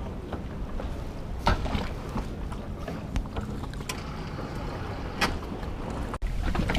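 Low steady rumble aboard a small boat, with scattered sharp knocks and clicks, the loudest about a second and a half in and again about five seconds in.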